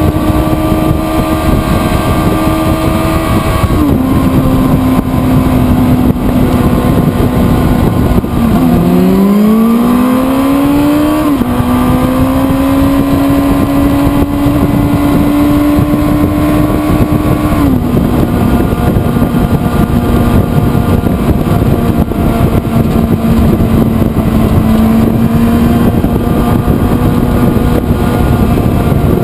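A sportbike engine running at speed, heard from on board, with wind rush. The revs step down with a gear change about four seconds in. They drop and climb again between about nine and eleven seconds, then step down with another shift, and step down once more around eighteen seconds.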